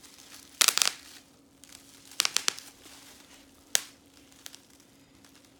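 Bubble wrap cells being popped by hand, in sharp pops: a quick cluster just under a second in, three more about two seconds in, a single pop near four seconds and a faint one soon after.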